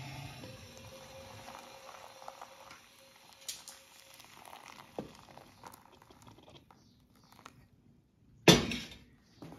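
Hot water poured from a metal kettle onto coffee grounds in a paper filter cone, a soft trickle with a few small clicks. Near the end comes one sharp, loud metal clank.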